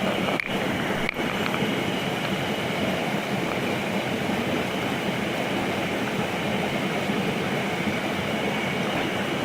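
Steady rush of a mountain stream's flowing water, with two very brief dropouts about half a second and a second in.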